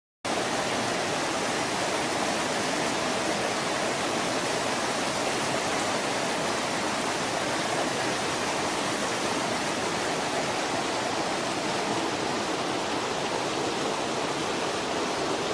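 Loud mountain creek rushing over cascading waterfalls: a steady, even wash of water noise that cuts in abruptly at the start.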